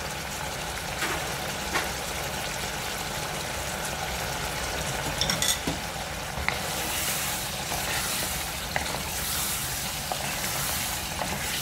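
Pressure-cooked mutton pieces sizzling in oil in a pot as they are browned (bhunai) with ginger-garlic paste. A few light clicks in the first half; about halfway through the meat is stirred with a wooden spatula and the sizzle grows louder.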